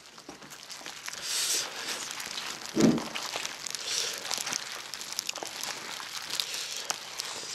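Disposable plastic glove crinkling and rustling as a gloved hand squishes and mixes spicy gopchang and rice in a disposable plastic bowl, with many small crackles throughout. A brief, louder low thump comes about three seconds in.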